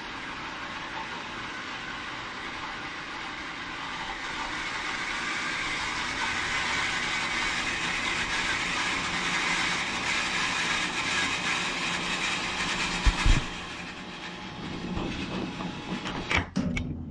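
Electric water pump running steadily as it fills the pressure tank, getting a little louder over the first ten seconds or so. About thirteen seconds in, two sharp clicks and the pump cuts out as the pressure switch shuts off at about 50 psi.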